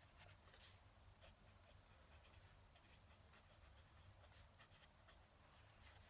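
Faint fountain pen nib scratching across paper in short, irregular strokes, over a low steady hum.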